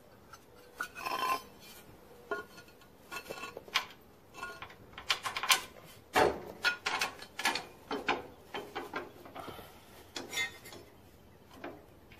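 Small steel hardware being handled: carriage bolts, lock washers and nuts clinking, and a steel plow frame bracket knocking against the tractor frame as it is fitted by hand. Irregular clicks and clinks, some briefly ringing, with the loudest knock about six seconds in.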